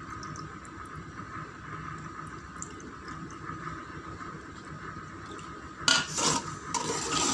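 Chicken masala in a steel pot giving a steady sizzle as it cooks. About six seconds in, a steel ladle scrapes and knocks against the pot as it is stirred.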